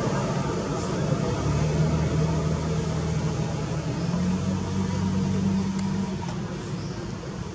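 A motor engine running steadily with a low hum that shifts slightly higher in pitch about halfway through, then fades toward the end.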